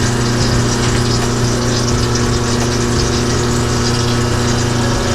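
InSinkErator Badger 5 half-horsepower garbage disposal running steadily with a strong, even hum.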